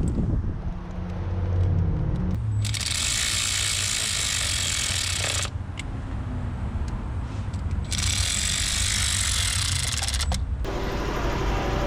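Two long, steady bursts of hissing gas from a nozzle, each about three seconds long and each cut off sharply, with a low hum underneath.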